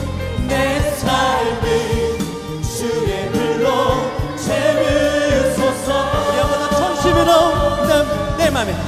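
Live contemporary worship music: a praise band plays while a worship team and choir sing, the voices gliding and wavering between lines of the song.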